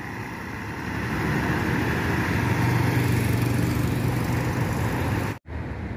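Road vehicle engine running with road noise, growing louder about a second in and holding steady with a low engine hum, then cut off abruptly near the end.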